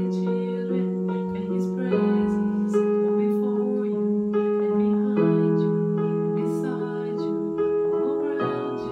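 Portable electronic keyboard playing slow, sustained chords that hold without fading and change about every three seconds.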